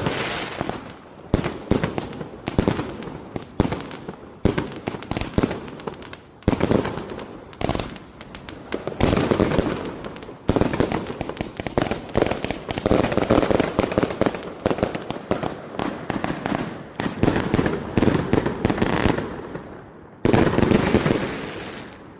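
83-shot Woodstock X2 angled fireworks cake firing shot after shot in rapid succession, with launch and burst reports overlapping. The firing grows dense from about 9 s in, and a last loud volley about 20 s in fades out.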